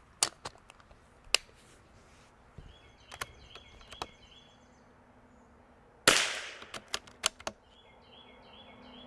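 A .22 LR bolt-action rifle, a Vudoo, fires one shot about six seconds in; the report is sharp and followed by a ringing tail. Before the shot there are several sharp clicks of the rifle being handled and a round loaded. Right after it come four quick clicks as the bolt is cycled.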